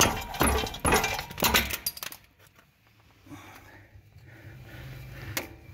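Metallic clanks and clinks of a ratchet and socket on a brake caliper bracket bolt being forced with a foot: several sharp, ringing strokes in the first two seconds, then a quiet stretch and one more near the end.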